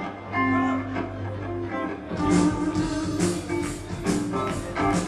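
Heavy metal band playing live: electric guitar notes over a steady bass line, with drums and cymbals coming in about two seconds in.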